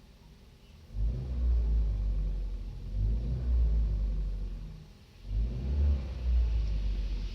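Kia Rio engine revved twice, each run rising and falling over a few seconds with a low rumble, recorded to show an engine knock that the owner is complaining about.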